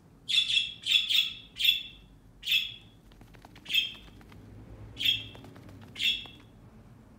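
Young budgerigar chirping close by: short calls, five in quick succession in the first two seconds, then single calls about once a second.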